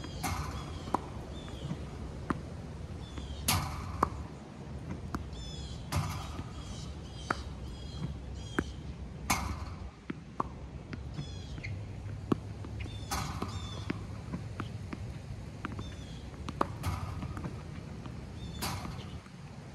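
Slinger tennis ball machine firing a ball about every three seconds, each shot followed by sharp pocks of the ball bouncing and being struck with a racket. Small birds chirp in the background.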